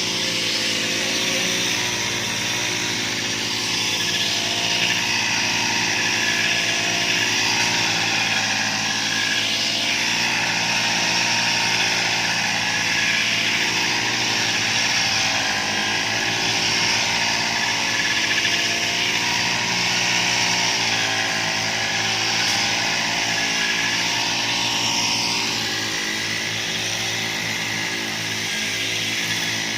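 Motorised grass cutter running steadily as it cuts grass, its engine note wavering slightly in pitch.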